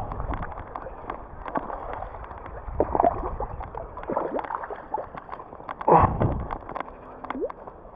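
Water splashing and sloshing as a hooked chub is reeled in to the bank, mixed with clicking and rubbing from the baitcasting reel and the rod being handled. The louder splashes come about three and six seconds in.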